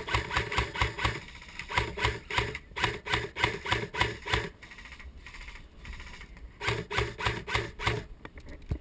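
Running footsteps on the ground, about four quick strides a second, with clothing and gear rubbing and rattling. They pause for about two seconds midway, then start again.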